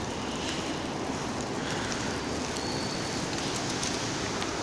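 Steady rushing noise of wind and handling on the camera's microphone, with a few faint clicks near the end.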